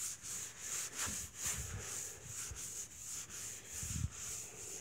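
A cloth being rubbed back and forth over a wet, freshly wet-sanded car hood, wiping off the sanding slurry, in steady strokes about three a second. A few dull low knocks come between the strokes.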